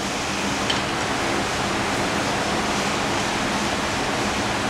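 Steady rushing background noise with a faint low hum underneath and one small click about a second in.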